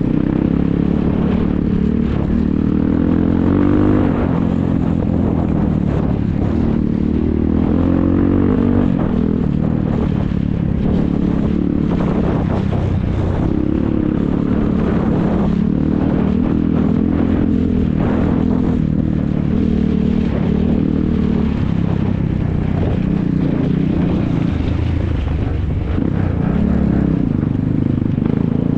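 ATV engines running hard and revving, their pitch rising and falling again and again.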